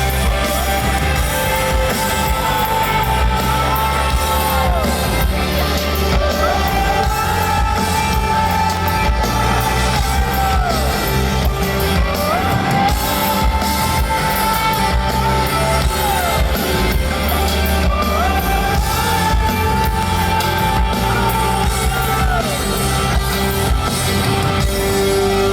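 Live rock band playing to a stadium crowd, with long held, wordless sung notes that glide up into place and fall away, recurring about every six seconds, over the full band and scattered crowd shouts.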